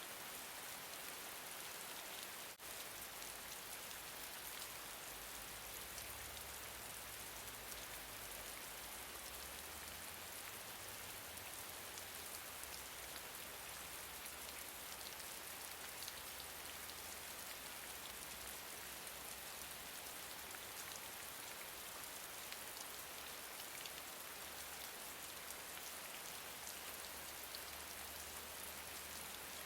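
Steady, gentle rain: an even hiss of falling drops with a fine, dense patter of individual drop ticks. There is one brief dropout about two and a half seconds in.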